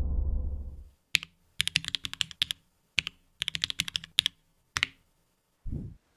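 Typing on a mechanical keyboard, plausibly the Space65 R1 with Holy Panda tactile switches and GMK keycaps: single keystrokes and quick runs of clicks for about four seconds, with a low thump near the end. A low rumble fades out in the first second.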